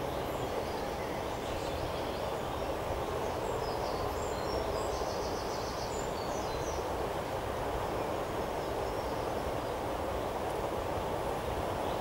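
Steady outdoor background rush with no breaks, with a few faint, high bird chirps in the middle.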